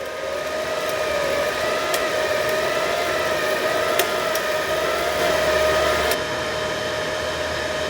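Wire-feed drive motor of a 110V flux-core MIG welder running steadily as it pushes the wire through the gun, a whir with a slightly wavering whine, with a few light clicks.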